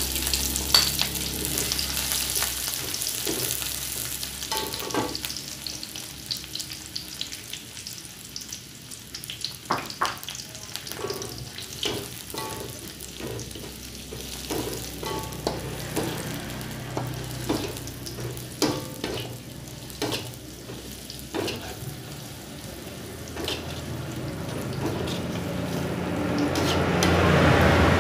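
Sliced garlic and shallots sizzling in hot oil in a wok, stirred with a metal spatula that clicks and scrapes against the pan at irregular moments.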